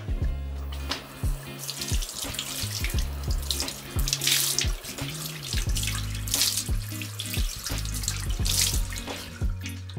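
Bathroom tap running into a washbasin, starting about a second and a half in and stopping near the end, with louder splashes as water is scooped up to wash the face. Background music with a steady beat plays underneath.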